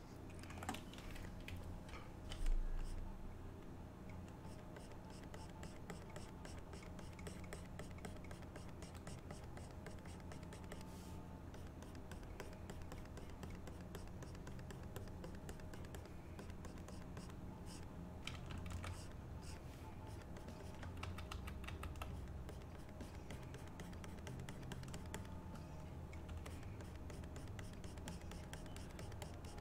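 Faint, rapid clicking and light scratching of a computer keyboard and drawing pen at work, over a low steady hum, with one low bump about two and a half seconds in.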